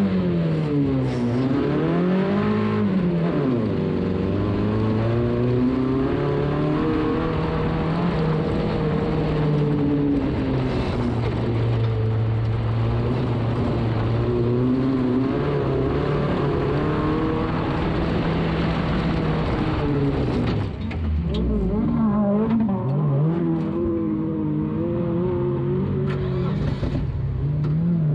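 Onboard sound of an AutoCrash racing car's engine under hard driving, the revs rising and falling again and again. About twenty seconds in the revs drop sharply, then climb again.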